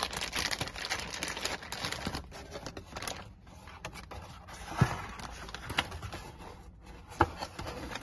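Plastic packaging bags crinkling as the contents of the box are handled, with three sharp knocks in the second half.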